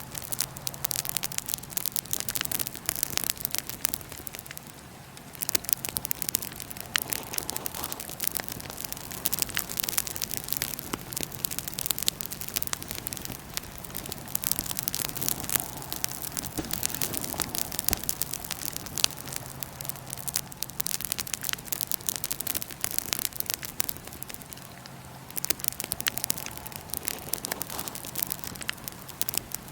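Wood fire burning in a fire pit, crackling and popping in quick irregular clicks over a soft hiss, with brief lulls twice. A faint steady low hum lies underneath.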